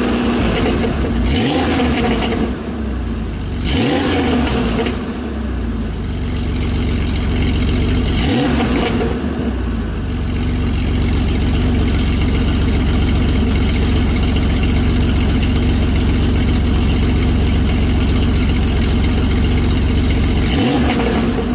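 Vehicle engine exhaust fitted with a baffle in the stock outlet and inner silencers in the dual tailpipes, idling steadily. It is blipped briefly a few times, near the start, around four and eight seconds in, and again near the end.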